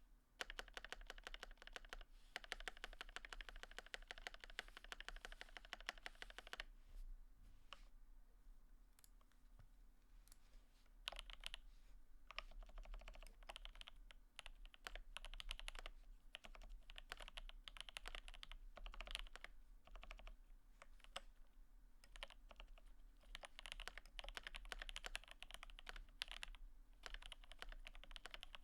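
Mechanical keyboard with lubed and filmed Alpaca linear switches and GMK keycaps being typed on. A fast unbroken run of keystrokes gives way to a few seconds of scattered single presses, then steady typing picks up again.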